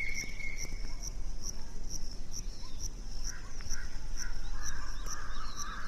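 Crickets chirping in a steady rhythm, about two chirps a second, over a low steady rumble.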